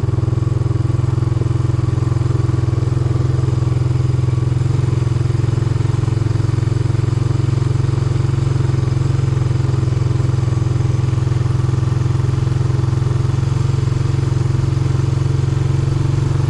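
Small vehicle engine running at a steady speed, heard from on board while riding, with a constant low drone that holds its pitch throughout.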